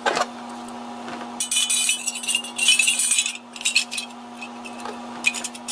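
Light metal parts clinking and clattering as sheet-metal discs, rings and a compressor wheel are handled and fitted together, busiest for about two seconds in the middle, with a few more clinks near the end. A steady low hum runs underneath.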